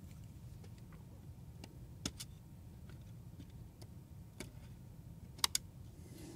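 Sparse light clicks and taps of small tools and metal parts being handled during a camera body teardown, the loudest a quick double click near the end, over a faint low hum.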